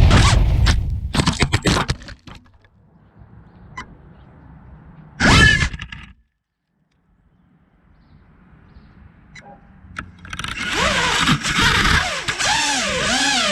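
FPV quadcopter's brushless motors whining: a short loud burst rising in pitch about five seconds in, then from about ten seconds in a whine that rises and falls with the throttle.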